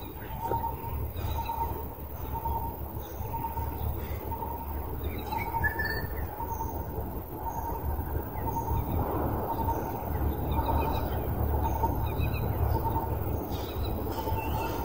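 A bird repeats a short, even note about twice a second, steadily, while other small birds chirp now and then, over a low steady outdoor rumble.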